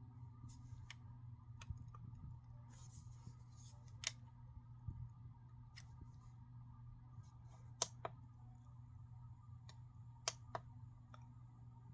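Quiet room with a steady low hum, broken by a few faint sharp clicks and two brief soft hisses in the first few seconds.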